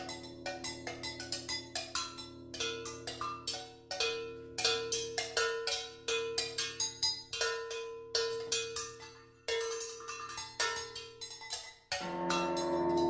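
Live music for percussion and guitar: quick, uneven strikes on ringing percussion over held low tones, with one ringing note struck again and again. Near the end the strikes stop and a sustained chord swells up.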